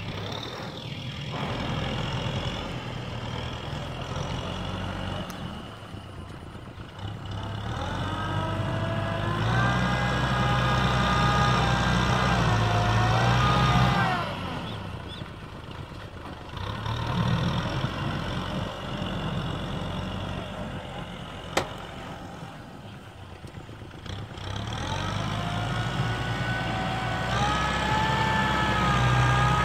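Tractor engine labouring in deep paddy mud, revving up hard twice: its pitch climbs, holds for several seconds under load, then drops back to a lower run. A single sharp click sounds in between.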